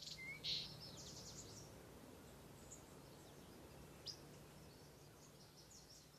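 Near silence between songs: a faint hiss with a few faint high chirps, most in the first second and one about four seconds in.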